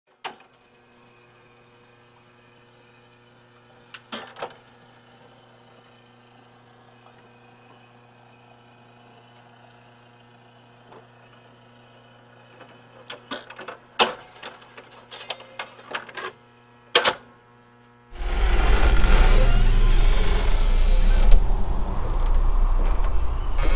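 A steady low hum with scattered clicks and knocks, then a loud rumbling noise, heavy in the bass, starts suddenly about 18 seconds in and keeps going.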